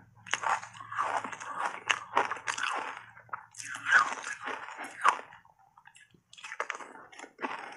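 Crunching and chewing of mouthfuls of shaved ice dusted with matcha powder, close to the microphone: dense, crackly crunches, a brief pause about three quarters of the way in, then a few more crunches.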